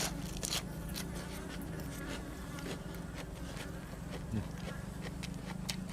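Close-up eating: crisp crunching and wet chewing clicks from fresh vegetables and grilled cuttlefish being chewed, over a steady low buzz.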